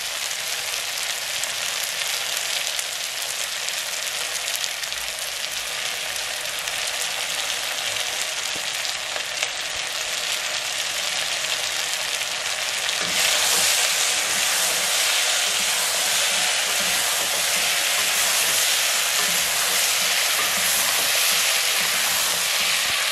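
Potatoes, green peas and spices frying in a pot, with a steady sizzle that grows louder about halfway through.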